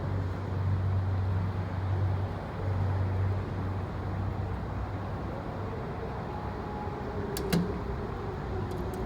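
Schindler hydraulic elevator riding up, its pump unit humming low for about the first four seconds, then easing off as the car comes to a stop. A single sharp click comes about seven and a half seconds in, with a faint steady whine around it.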